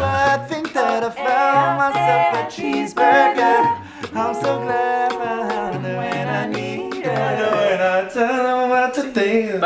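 A cappella group singing in close harmony, several voices moving together over a low bass voice on held notes, with short sharp percussive clicks in among them.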